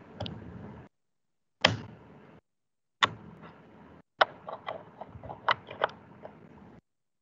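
Sharp clicks and knocks, about five loud ones among smaller ones, with a low hiss between them, coming through a video call's microphone. The sound cuts in and out abruptly, with dead silence in the gaps.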